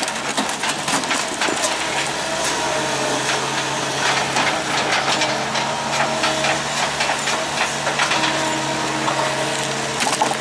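Heavy equipment engine running steadily under load while wood cracks, splinters and snaps again and again, as old deck boards are torn up and crushed.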